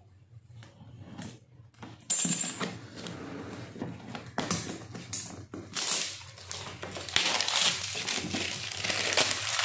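Plastic shrink-wrap on a cardboard box being torn open and peeled away, crinkling and crackling. It starts suddenly about two seconds in and goes on as irregular rustling.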